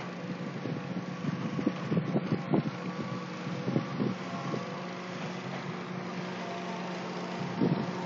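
BNSF covered hopper cars of a freight train rolling past on the rails: a steady rumble and hum with irregular sharp clicks and knocks from the wheels, most of them in the first half and one more near the end.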